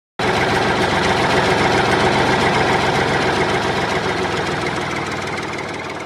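An engine running steadily, cutting in abruptly and fading out slowly over the last couple of seconds.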